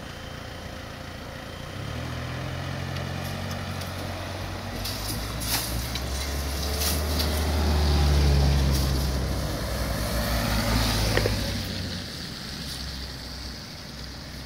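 Cars driving across on a wet road, engines running low with tyre hiss. It grows to its loudest as they pass close about eight seconds in, with a second pass near eleven seconds, and there are a few clunks between about five and seven seconds in.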